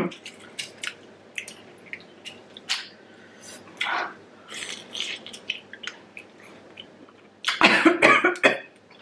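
Shell of a cooked giant prawn crackling as it is peeled by hand, with chewing, then a loud short burst of coughing about seven and a half seconds in, brought on by the very hot sauce.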